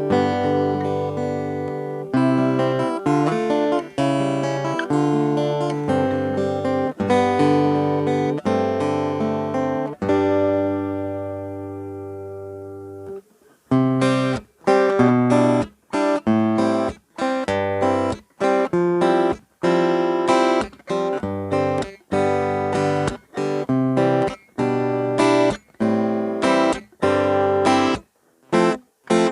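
Cort AD810 OP steel-string acoustic guitar being strummed: full chords ringing on for about ten seconds, then one chord left to ring out and fade. After a brief silence the playing turns to short, choked chord strokes about two a second.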